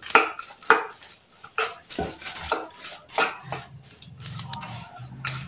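A wooden spatula scrapes and knocks against a nonstick pan, roughly twice a second, as popped popcorn is stirred and tossed through sticky caramel.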